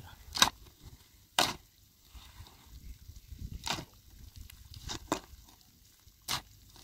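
A series of sharp strikes, five in all, about one to two seconds apart at an uneven pace, with quiet low rustling between them.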